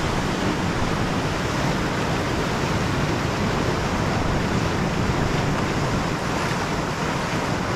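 Steady rushing of river water, with a low wind rumble on the microphone.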